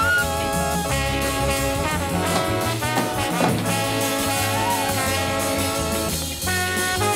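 Jazzy, swing-style film-score music with brass over a steady bass line, with a few sliding notes.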